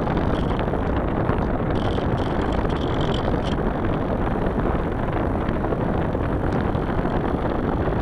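Steady rush of airflow over the microphone of a camera mounted on a small aircraft in flight.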